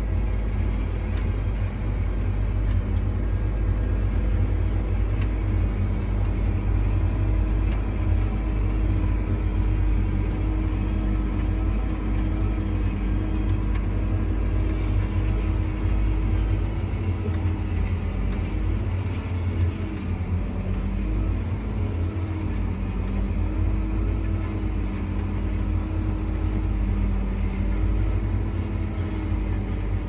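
John Deere tractor engine running steadily, heard inside the cab as a low rumble with a steady hum whose pitch wavers and dips for a few seconds about two-thirds of the way through.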